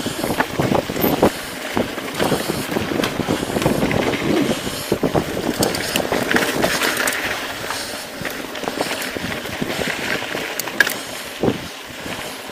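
Mountain bike riding over rocky dirt singletrack: tyres crunching over gravel and stones, with frequent rattling knocks from the bike. It is busiest over the first half and eases as the trail turns to smoother dirt near the end.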